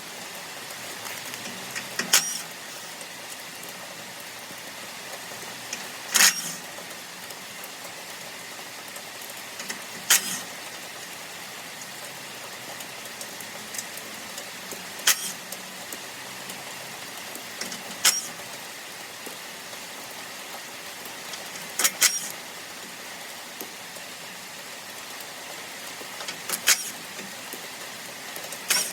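Steady rain noise, with a loud sharp click or tap about every four seconds.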